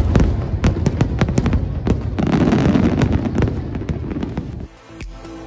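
Fireworks show: a rapid string of aerial shell bursts and crackling stars. About four and a half seconds in, it cuts abruptly to electronic music with a steady beat.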